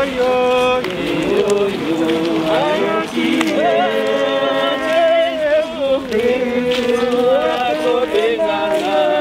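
Several voices singing together, with pitches that rise and fall.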